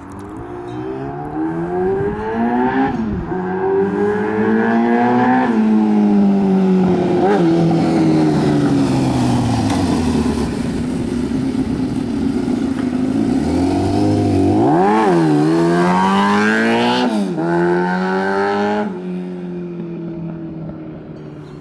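Motorcycle riding past, its engine revving up through the gears with the pitch climbing and dropping at each shift, easing off, then pulling hard again with two quick throttle blips before fading near the end.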